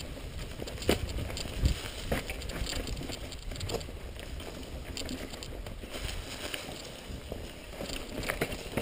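Mountain bike rolling down a leaf-strewn dirt singletrack: steady tyre noise over leaves and dirt, with scattered sharp knocks and rattles as the bike goes over bumps.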